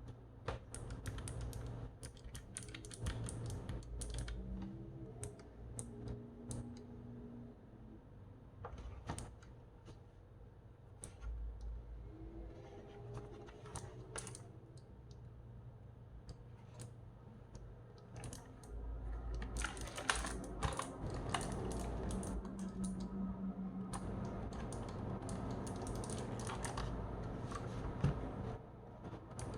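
Typing on a Keychron K1 SE low-profile mechanical keyboard. Irregular key clicks come scattered at first, then from about two-thirds of the way in they turn into a fast, continuous run of keystrokes, over a low steady hum.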